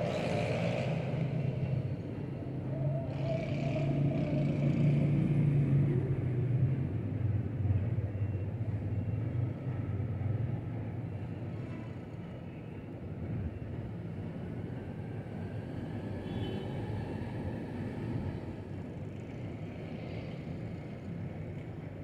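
Low steady rumble of distant urban traffic and engines, louder for the first several seconds and then easing off.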